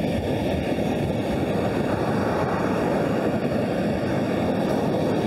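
Wind buffeting the microphone over the wash of waves on a shingle beach, a steady, even roar with no breaks.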